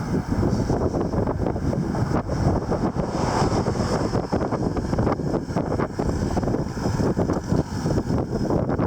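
Wind buffeting the microphone of a camera riding along on a bicycle: a loud, steady low rumble that flutters rapidly.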